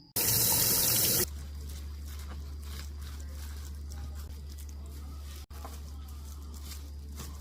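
Water running loudly for about a second, as from a kitchen tap while rinsing squid, then stopping, leaving a steady low hum with faint small knocks.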